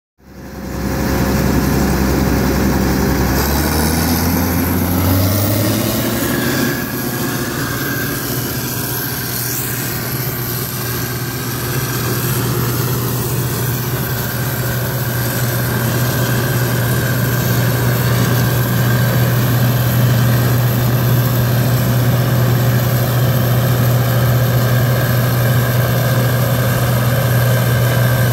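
Large harvest machine's engine running, throttling up a few seconds in and then holding a steady, higher working speed.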